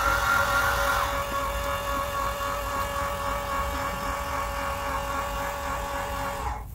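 Orion XX14g GoTo Dobsonian's drive motors whining as the telescope slews to a target: a steady, several-toned whine whose highest tone rises at the start and drops out about a second in, then the rest stops shortly before the end as the scope arrives on target.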